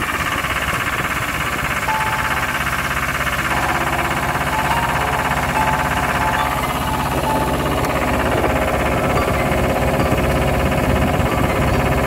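Plastering machine's mixer motor and paddles running steadily while cork-lime insulating plaster is mixed in its tub, a constant whining hum with a deep drone beneath.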